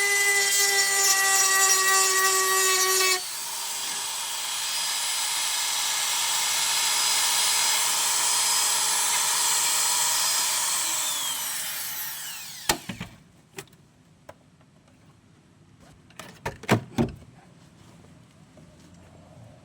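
Electric grinder grinding out rusty sheet steel on the car's rear panel, its motor whining steadily with a change in tone about three seconds in. Past the middle the grinder is released and its pitch falls as it spins down. A few sharp metallic knocks follow.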